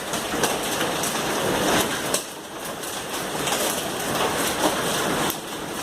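Hail and heavy rain pelting down: a dense, steady clatter of many small impacts. The clatter eases briefly about two seconds in.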